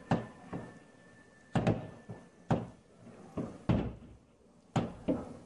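Fireworks going off at ground level, firing shots low and sideways: about eight sharp bangs at uneven intervals.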